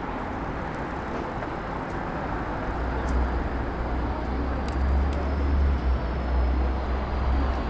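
Street traffic noise: a motor vehicle passes close by, with a deep rumble coming in about three seconds in and lasting several seconds over steady road noise.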